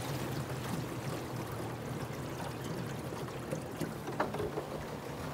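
Water rushing and splashing along the hull of a small aluminium punt on a fast-flowing river, over the low, steady hum of its Tohatsu outboard motor. A single sharp knock about four seconds in.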